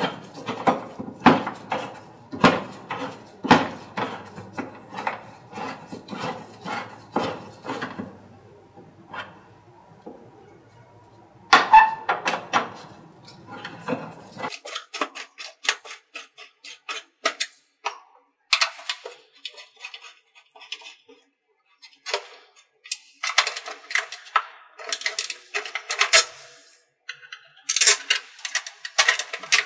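Hex-key wrench tightening the cowling bolts on a dry scroll pump: a series of light metallic clicks and taps, with a quieter pause about a third of the way in and a denser run of clicks near the end.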